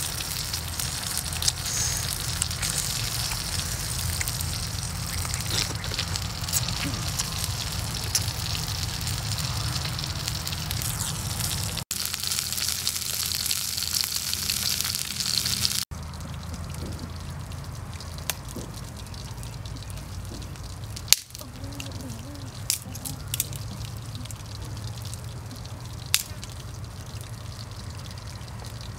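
Fish grilling over an open wood fire: a steady hissing sizzle at first, then, from about halfway through, a quieter stretch with scattered sharp crackles and clicks, the loudest a little after two-thirds of the way in.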